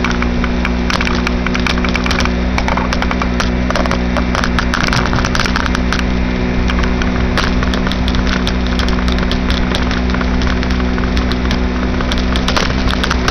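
2006 Baja SC50 moped's engine running at a steady speed under way, a constant hum over a rushing noise with scattered clicks.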